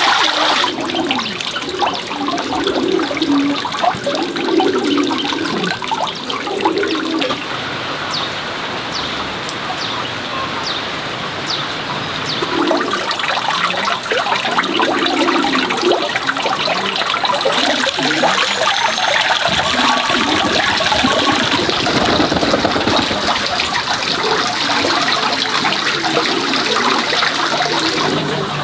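Water running and splashing steadily, a continuous rushing spatter.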